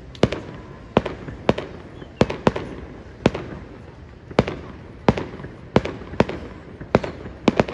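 Aerial fireworks shells bursting in a rapid string of sharp bangs, about a dozen, one to two a second.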